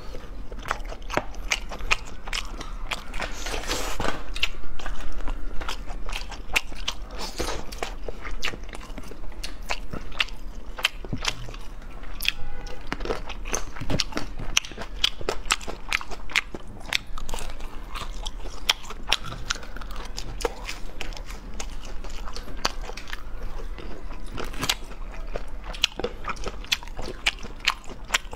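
Crispy fried food being bitten and chewed, with many sharp, irregular crunches, often several a second.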